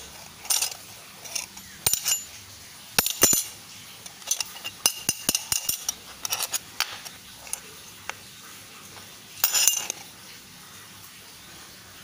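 Metal medals, 2 mm thick, clinking against each other as they are handled and laid down, a string of sharp clinks in clusters, some ringing briefly. The clinks stop about ten seconds in.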